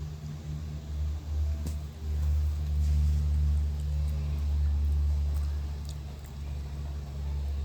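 Low, steady rumble of an idling motor, growing louder about two seconds in.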